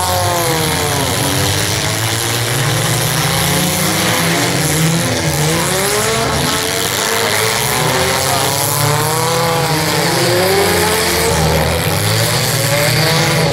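Engines of several demolition derby cars revving, rising and falling in pitch again and again as they push and ram in the mud.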